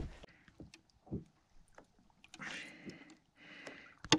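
Handling noises on a small boat's deck: a thump at the start, a short knock about a second in, two stretches of rustling, and a sharp click near the end.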